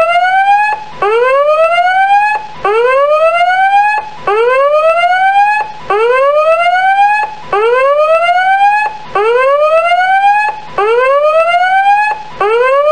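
Timer's electronic end alarm: a whoop tone that rises in pitch, cuts off briefly and starts again from low, repeating about every one and a half seconds.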